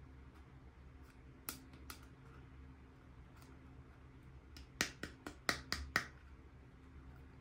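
Sharp clicks and taps of small miniature-kitchen toy pieces being handled: two about a second and a half in, then a quick run of about six past the middle, over a faint low hum.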